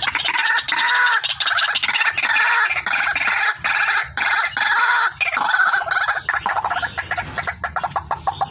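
White-breasted waterhen (ruak-ruak) calling, a female's call used as a trapping lure. It is loud, made of rapid pulsed notes run together in phrases of about a second, with short breaks between them.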